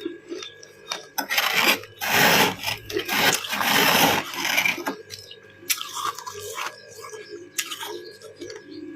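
Freezer frost being scraped and crunched close to the microphone: a loud rasping scrape lasting about four seconds, then quieter crunches with a couple of sharp clicks.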